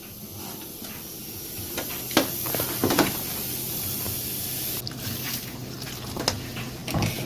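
Kitchen work sounds: a steady hiss with several sharp knocks and clatters of utensils, about two seconds in, around three seconds, and again near the end.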